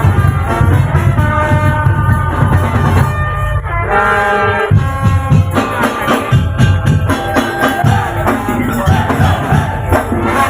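Tong-tong ensemble music, loud and continuous: heavy drumming and percussion under a held, wind-instrument-like melody.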